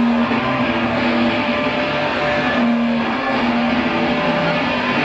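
Loud live rock band playing: distorted electric guitars hold long notes in a dense wall of sound.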